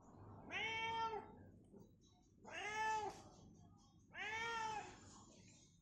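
Domestic cat meowing three times, each meow about half a second long and arching up then down in pitch: a hungry cat asking for food.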